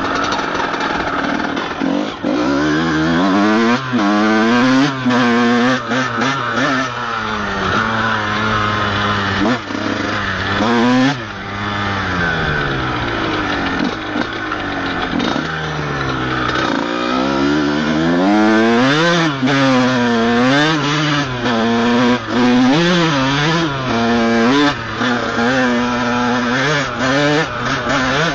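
Honda CR125's single-cylinder two-stroke engine, heard from the rider's helmet, revving up and down over and over as the throttle is opened and closed on a trail ride, with quick rises and drops in the second half. The bike is being ridden slowly on a burnt clutch.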